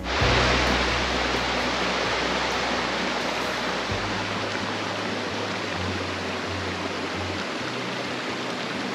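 Rushing mountain stream: a steady, even rush of water that cuts in suddenly at the start, loudest at first and easing a little. Background music with slow low notes plays under it.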